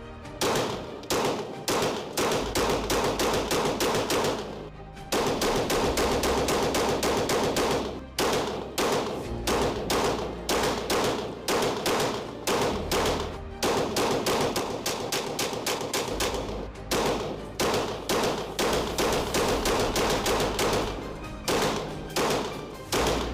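Pistol shots fired in quick strings, a few per second, with a few short pauses, over background music with a deep bass line.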